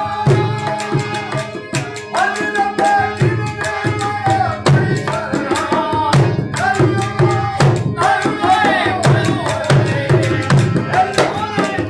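Harmonium and dholak drum playing a Rajasthani folk song. The drum beats a fast, steady rhythm under the harmonium's held reed chords.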